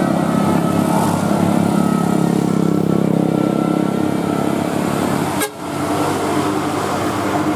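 Road vehicle engines running, with horns sounding over them. A short click and dip in level comes about five and a half seconds in.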